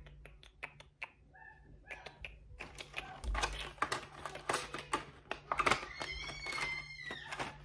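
Rapid, irregular clicking and tapping of small hard objects, with a short high-pitched wavering cry about six seconds in.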